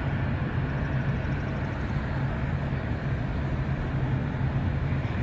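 Steady outdoor background rumble of airport and road traffic with a constant low hum, unchanging throughout.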